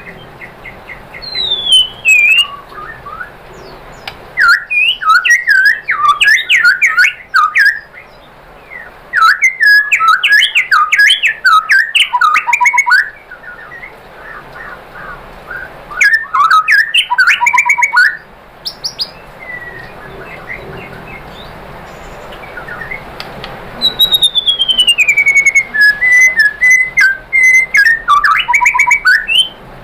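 White-rumped shama (murai batu) singing in loud bursts of rapid varied whistles, trills and chattering notes, several phrases separated by short pauses, one near the end opening with a long falling whistle.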